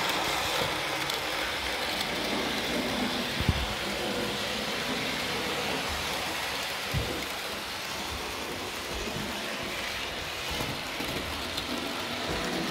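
N scale model steam locomotive running on sectional track off a 9-volt battery: a steady whirr and rattle of the small motor and wheels on the rails, with a couple of small clicks.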